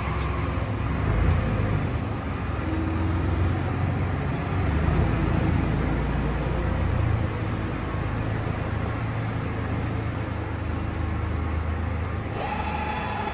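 Weiler E110 lathe running with a steady low mechanical hum. About a second before the end a steady higher whine joins it.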